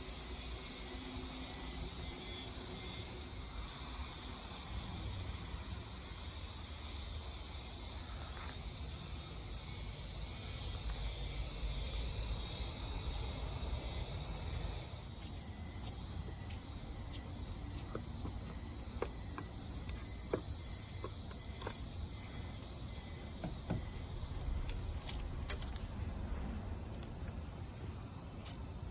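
A steady, high-pitched chorus of summer insects in the forest. A few faint light clicks or knocks come in the second half.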